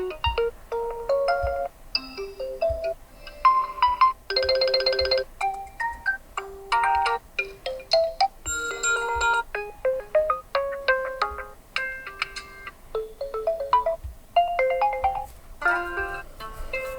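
Oppo A94 5G smartphone's built-in alarm tones played one after another through the phone's speaker: short electronic melodies, each cut off after a second or two as the next one starts.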